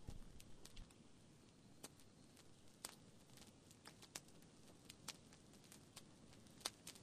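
Near silence, broken by faint, sharp clicks at irregular intervals.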